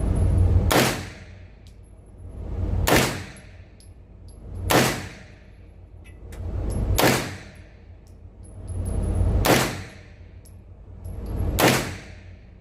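Pistol-caliber carbine, an MP5 clone, fired six times in slow, deliberate single shots about two seconds apart, each crack ringing out in the range.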